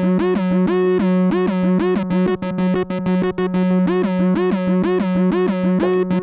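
Donner B1 analog bass synthesizer, a TB-303-style clone, playing a sequenced acid bassline. It is a fast, even run of notes with slides gliding between the pitches.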